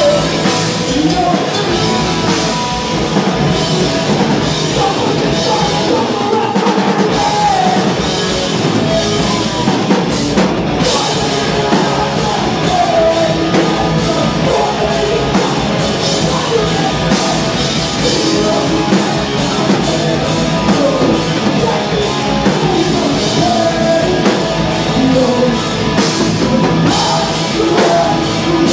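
Live punk rock band playing loud: distorted electric guitars and a drum kit with a singer's vocals on top.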